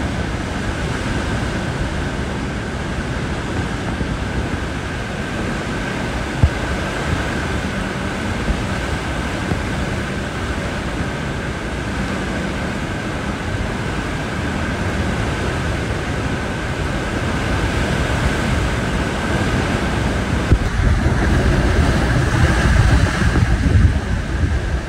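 Hurricane eyewall wind: a loud, steady rush buffeting the microphone, with a constant high whistle through it. It grows stronger and deeper in the last few seconds.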